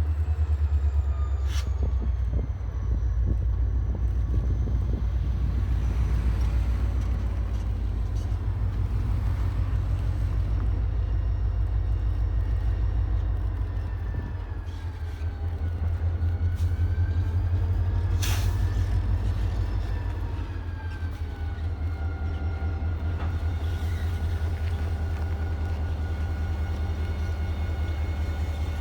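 A vehicle engine running with a deep, steady rumble, under a faint whine that slowly falls and rises in pitch. Two sharp clicks come about a second and a half in and again near the middle.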